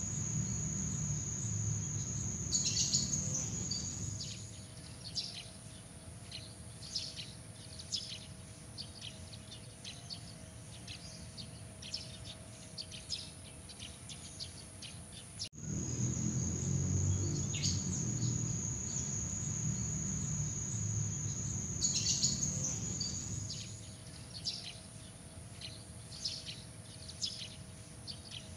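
Night nature ambience of a steady high insect trill and scattered short bird chirps over a low rumble. The trill stops about four seconds in, leaving the chirps. About halfway through the sound cuts out abruptly and the same sequence repeats, a looped ambience track.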